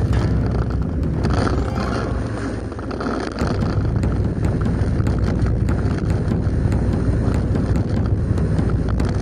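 Yamaha Cygnus X 125 cc scooter riding along a road: steady engine and road rumble with wind buffeting the microphone. From about three and a half seconds in, small sharp ticks sound over the rumble.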